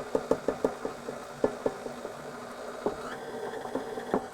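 Powdered sugar being poured from its box into a mixing bowl: a patter of quick light clicks, about four or five a second at first, then thinning to scattered single taps.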